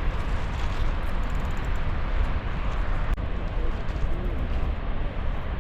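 Steady roar of a large waterfall, Helmcken Falls plunging about 140 metres into its canyon: an even, rumbling rush of water, heaviest in the deep low end.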